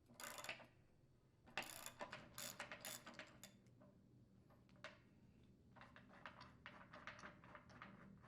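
Faint, quick clicking of a ratchet wrench with a 1 1/16 inch socket unthreading the old anode rod from a water heater tank. It comes in short spells, with a pause of about two seconds midway.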